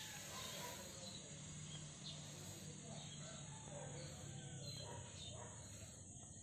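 A rooster crowing faintly, over a low steady hum.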